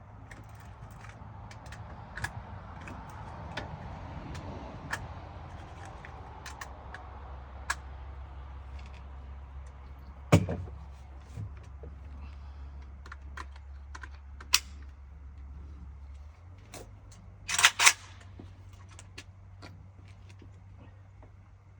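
Scattered small clicks and knocks, with one sharp loud bang about ten seconds in and a quick double rasp near the end, over a steady low hum.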